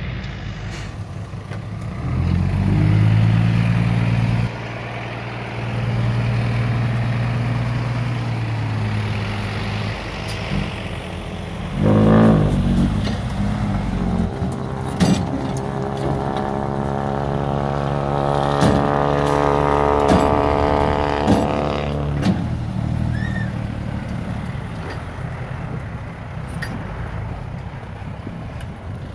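Isuzu Deca six-wheel dump truck's diesel engine running and revving while its hydraulic hoist tips the bed to dump soil, with a whine that climbs in pitch for several seconds midway as the bed lifts. A brief loud burst comes about twelve seconds in, and the engine settles lower toward the end as the truck pulls away dragging the load.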